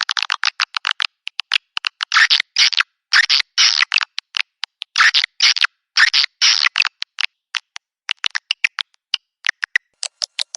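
Swiftlet call sound (a swiftlet-house lure recording): rapid buzzy twittering chirps in dense bursts of about half a second to a second, giving way after about seven seconds to scattered short clicks.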